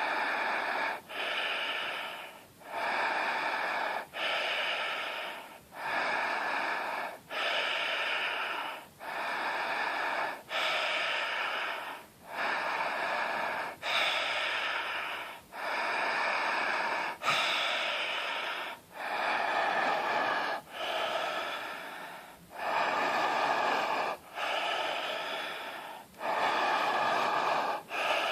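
A person breathing very deeply with the throat opened wide, each breath an audible rush of air. The breaths follow one after another at about one every second and a half, with short gaps between them.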